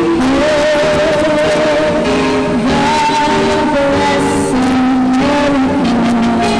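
A woman singing into a microphone over instrumental backing music, holding long notes with a wavering vibrato.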